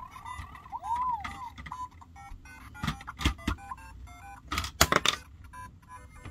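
LEGO Super Mario interactive Peach figure in her cat suit playing electronic game sound effects and jingle tones from her built-in speaker, with a quick rising-and-falling chirp about a second in. There are a few sharp plastic clacks around three seconds in and again near five seconds.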